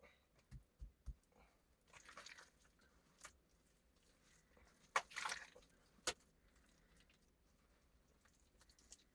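Near silence broken by a few faint clicks and soft crunches, with the sharpest clicks about five and six seconds in.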